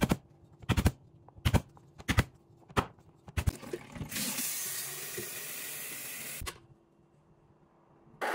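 A run of six sharp knocks about two-thirds of a second apart at a plastic cutting board. Then tap water runs into a stainless steel electric kettle for about two and a half seconds and stops abruptly. Near the end comes a click as the kettle's base switch is pressed.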